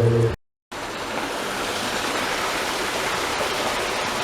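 Steady rush of running water, starting after a brief full dropout of the sound near the start.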